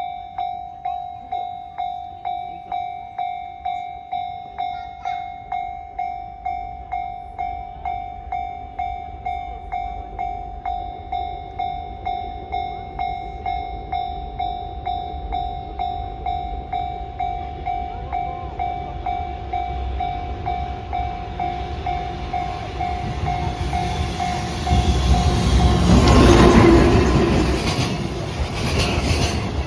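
Level-crossing warning bell ringing in an even ding-ding rhythm, about one and a half dings a second. In the last few seconds an EF210 electric locomotive hauling a freight train comes up and passes with a loud, growing rumble that drowns out the bell.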